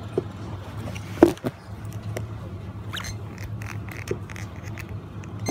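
Steady low hum of a shop's background noise, with scattered clicks and knocks; the loudest is a sharp knock about a second in.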